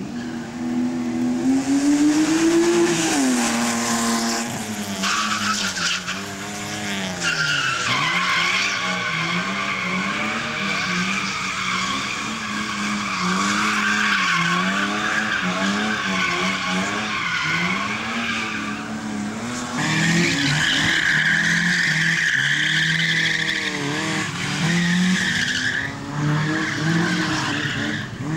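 A slalom car's engine revving up and falling back again and again as it is driven hard through the cones. Long stretches of tyre squeal run over it from about five seconds in, break off briefly, then come again for several seconds.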